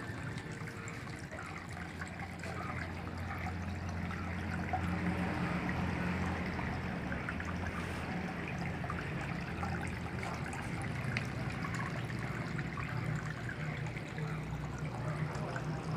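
Water from a tabletop waterfall trickling and splashing steadily, with a low steady hum underneath.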